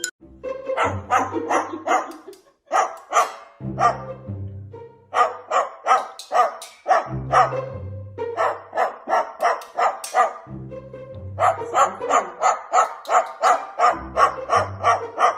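Upbeat background music with a bass line, with rapid short bark-like yaps, about four a second, running through it.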